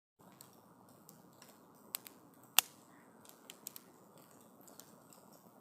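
Wood campfire crackling: irregular sharp pops over a faint steady hiss, with one loud pop about two and a half seconds in.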